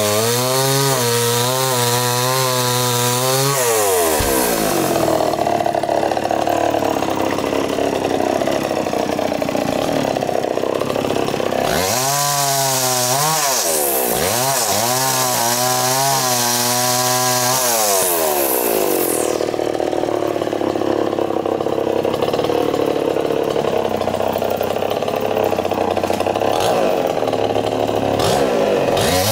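Two-stroke chainsaw cutting through a coconut palm trunk. The engine swings between a lower, wavering pitch and long stretches at high revs, dropping back once in the middle and again at the end.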